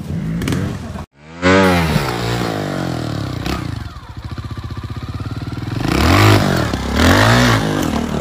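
Trials motorcycle engine: a sharp rev that falls away quickly, then running low with a fast ticking beat, then two quick throttle blips near the end as the bike hops onto stone blocks.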